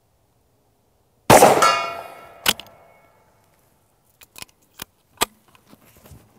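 A single blast from a Greener GP 12-gauge Martini-action single-shot shotgun, followed by a metallic ringing from the struck steel gong that fades over about a second and a half. A sharp click follows as the lever drops the breech open, then a few lighter metallic clicks as a fresh shell goes in and the action closes.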